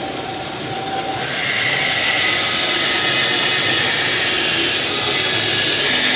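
Bandsaw running, with a steady hiss and a thin high whine that come in suddenly about a second in and then hold steady.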